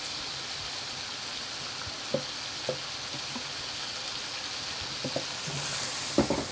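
Quail pieces frying in a pan of thick, reduced gravy, with a steady sizzle as sesame oil is poured in. A wooden spatula knocks against the pan a few times, loudest near the end.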